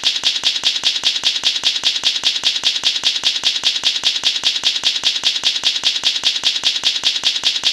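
Rapid, even clicking sound effect, like keys typing, about seven clicks a second.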